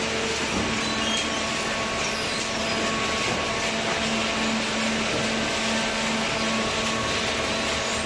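Hydraulic waste-paper baler and its inclined chain feed conveyor running, a steady mechanical noise with a constant hum as paper is carried up and dropped into the baler's hopper.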